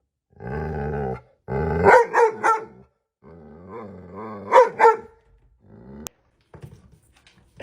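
A dog vocalizing: a low growl, then a quick run of three sharp barks, a wavering growl, and two more loud barks. A single sharp click comes about six seconds in.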